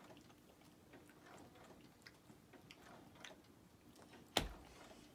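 Near silence in a small room, with faint scattered ticks and one sharp click about four and a half seconds in.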